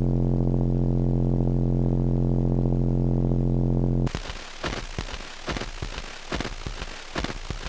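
A sustained low synthesizer drone chord holds steady, then cuts off abruptly about four seconds in. It gives way to irregular crackling and sharp clicks over a noisy hiss.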